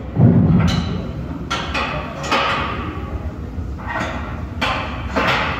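Gym weights clanking: a heavy thump, then several sharp, irregular knocks and clanks that echo in the hall.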